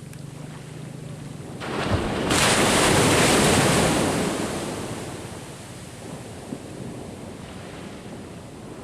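Sea surf: a wave breaks and washes up about two seconds in, swelling to its loudest and then fading away over a few seconds, with wind on the microphone.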